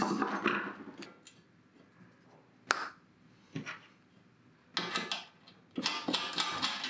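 Small clicks and rattles of hexagonal spacers being handled and fitted onto a sheet-metal amplifier chassis: a single sharp click a little under three seconds in, then short bursts of tapping and scraping near the end.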